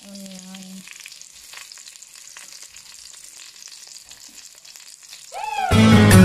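Oil in a wok sizzling faintly with small crackles as sliced onion is dropped onto browned garlic. About five and a half seconds in, loud electronic music with a heavy bass line cuts in over it.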